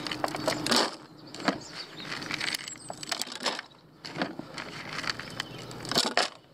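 Handfuls of sweetcorn and carp pellets being scooped from a bucket and dropped into a plastic bait boat hopper: an irregular string of rattling, rustling pours, one handful after another.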